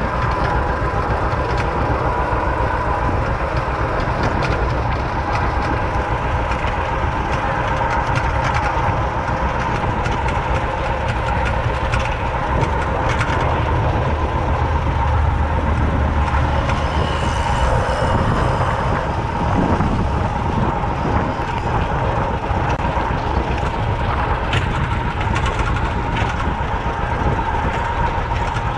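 Vintage John Deere tractor running steadily at a constant speed while towing a wagon, with a continuous low engine rumble, a steady whine, and the wagon clattering and rattling over rough ground.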